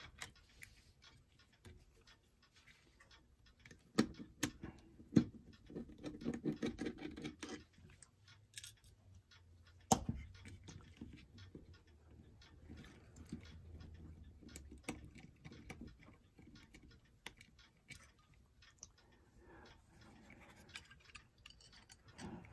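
Small metal clock parts being handled as the housing is worked off an electric clock motor: light scraping and fiddling, with a few sharp clicks and taps, the loudest about four, five and ten seconds in.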